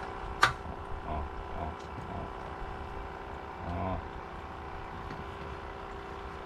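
A boat engine running steadily, with wind and sea noise, and a single sharp click about half a second in.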